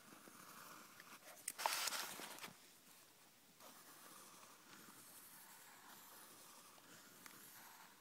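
Pencil drawing on lined notebook paper: faint scratchy strokes, with one louder rub lasting about a second, a little under two seconds in.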